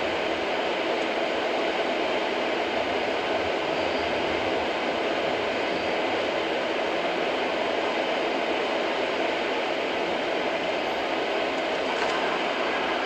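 Steady road noise of a car driving on a wet highway, heard from inside the cabin: tyres on wet pavement under a low engine drone, at an even level throughout.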